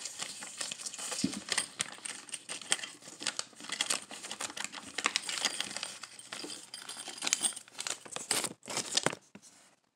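Crinkling and rustling of a plastic packet handled by hand, with many small irregular clicks, stopping about nine seconds in.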